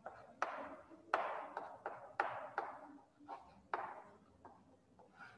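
Chalk writing on a blackboard: a string of irregular sharp taps as the chalk strikes the board, each trailing into a short scratchy stroke.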